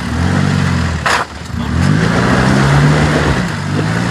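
4x4 vehicle's engine revving under load on an off-road trail, its pitch rising and falling, with a brief dip about a second in and then a climb in revs.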